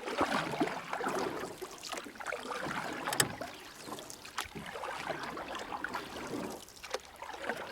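River water moving and churning, with scattered irregular clicks and knocks.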